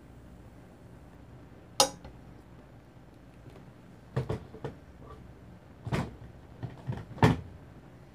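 Sharp clacks and knocks of seasoning bottles and containers being handled and set down on a table: one loud clack about two seconds in, then a few quicker knocks and two more loud ones near the end.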